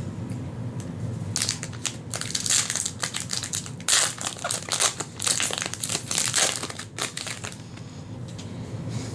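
Plastic foil wrapper of a Magic: The Gathering booster pack crinkling as it is torn open and handled. The crinkling starts about a second and a half in and stops near the end.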